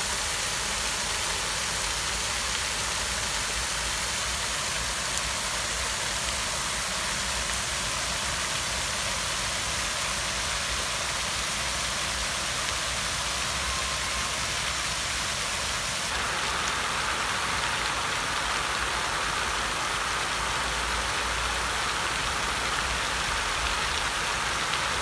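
Fountain jets, a ring of arcing sprays and a central jet, splashing steadily into a shallow pool: a constant hiss of falling water. About two-thirds of the way through, the hiss turns a little brighter.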